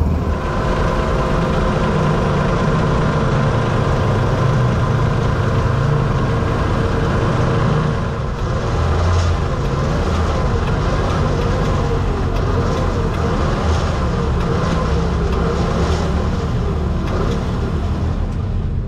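Vintage wrecker truck's engine running steadily while its boom cable lifts a rolled-over side-by-side UTV. After a brief dip about eight seconds in, a faint whine rising and falling about once a second joins the engine.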